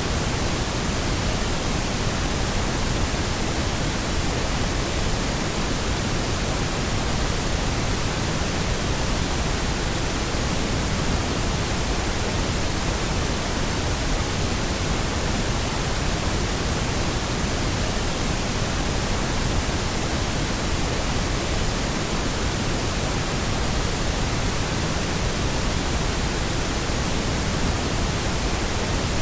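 Steady, unchanging pink noise: an even hiss spread over the whole range, fuller in the lows than white noise.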